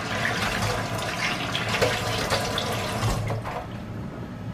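Water running from a kitchen tap, easing off near the end.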